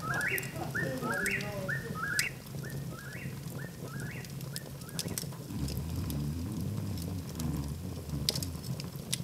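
A repeated high call from an animal at night, about three a second, fades out about halfway through. Then a log fire crackles with sharp pops over a low steady rumble.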